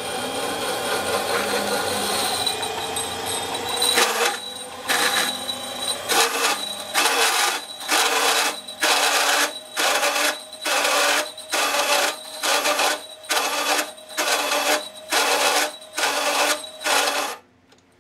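Benchtop metal lathe turning in low gear with the tool cutting metal: a steady scraping cut with a ringing tone at first, then from about four seconds in regular bursts of cutting about one and a half a second. The sound stops suddenly near the end as the lathe is switched off.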